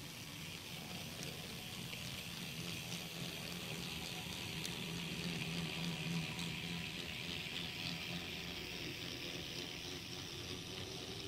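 N scale model train of Santa Fe F-unit diesels rolling on Kato Unitrack: a steady rushing of wheels on the rails over a low electric motor hum. It grows louder as the locomotives come past about halfway in, then carries on as the boxcars roll by.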